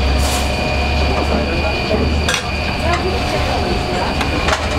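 Metal spatula scraping and clanking against a large steel pan as shaved döner meat is tossed, giving a few sharp knocks, over a steady machine hum with a high whine in the kitchen.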